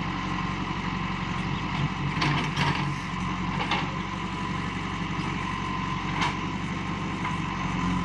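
JCB backhoe loader's diesel engine running steadily, its front bucket pressed against the base of a palmyra palm, with a few short knocks in the middle of the clip and one more near the end.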